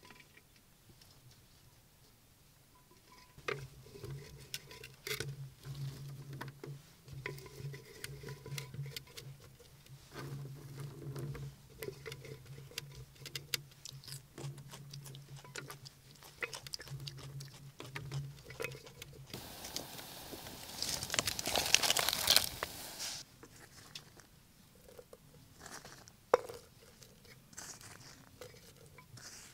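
Hands packing cut vegetable strips and garlic cloves into an earthenware jar: soft taps, clicks and rustles of handling. A louder rustling rush comes about twenty seconds in, and a sharp click a few seconds later.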